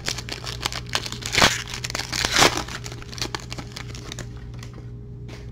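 Foil wrapper of a trading card pack crinkling and tearing as it is pulled open by hand. The crinkling is busiest over the first three seconds, loudest about one and a half and two and a half seconds in, then thins to light rustling as the cards come out.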